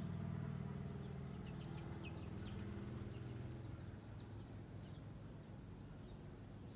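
Outdoor ambience: a low engine-like rumble fading away over the first few seconds, under a steady high-pitched whine. A run of faint, quick high chirps and a few short falling peeps comes in the first five seconds and then stops.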